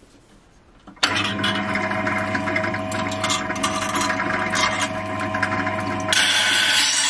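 Powered sharpening machine starting up about a second in, its motor running with a steady hum and whine while the chipped knife edge grinds against the spinning abrasive wheel with a gritty scraping and small irregular ticks. Shortly before the end the hum drops and the grinding turns into a louder, harsher hiss.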